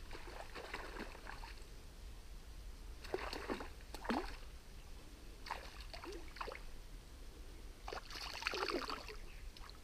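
A small hooked pike splashing and thrashing at the surface of a shallow river while being played on a lure rod, in four short bursts of splashing a couple of seconds apart.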